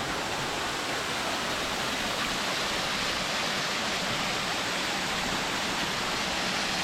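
Water of a waterfall falling and running in small streams, a steady, even rush.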